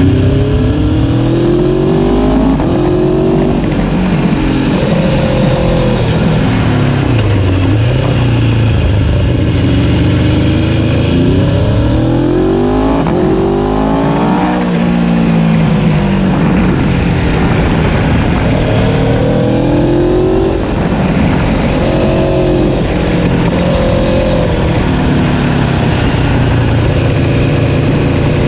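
Aprilia Tuono sport motorcycles ridden hard, engines revving up through the gears again and again with the pitch rising in sweeps and dropping back at each shift or when rolling off, over steady wind and tyre noise.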